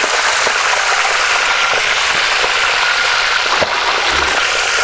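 Fish frying in hot oil in a plow-disc pan (disco de arado), a steady loud sizzle with scattered small pops. The fish are frying on their second side, turned to crisp.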